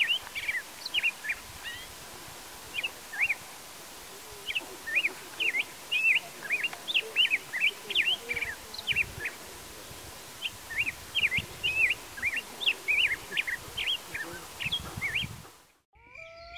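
Birds chirping outdoors: runs of short, quick, high chirps that rise and fall in pitch, repeated over a steady background hiss, fading out shortly before the end.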